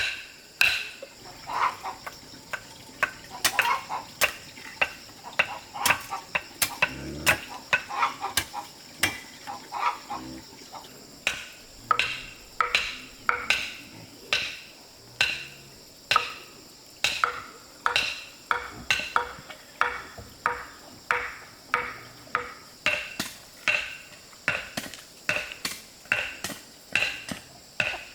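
Repeated blows of a hand tool, roughly one to two a second, each a sharp knock with a short ring; lighter, more scattered knocks at first, then a steady rhythm from about eleven seconds in.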